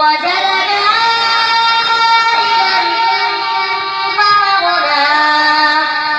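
Quran recitation (tilawat): a single voice chanting in long, ornamented held notes, with a new phrase starting about four seconds in.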